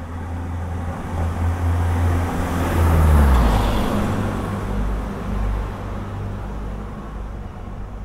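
A motor vehicle drives past with a low engine rumble. It grows louder to a peak about three seconds in, the engine pitch dropping as it passes, then fades away.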